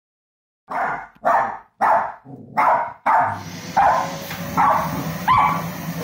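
West Highland White Terrier barking, about eight barks roughly every two-thirds of a second, starting just under a second in. From about halfway through, a vacuum cleaner runs steadily under the barks.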